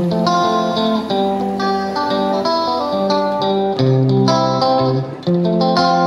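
Background music: a plucked guitar playing a steady run of picked notes.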